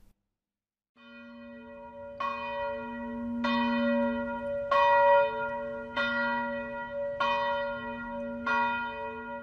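Church bell tolling, fading in about a second in and then struck about once every second and a quarter, six strikes, each strike renewing a long ringing tone with several overtones.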